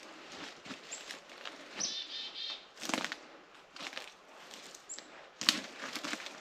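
Footsteps crunching in leaf litter on a forest floor, a few separate steps, the loudest about five and a half seconds in. A small bird gives short high chirps about a second in and again near five seconds, with a brief buzzy call around two seconds.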